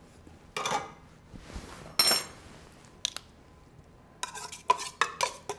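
Metal spoon scraping chicken out of tin cans, in short scrapes and knocks against the can and a glass mixing bowl, with one ringing clink about two seconds in and a quick run of knocks near the end.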